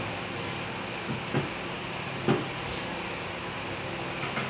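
A few light knocks and clicks of balut eggshells and spoons being handled at a table, three spaced out in the first half and another at the very end, over a steady low hum.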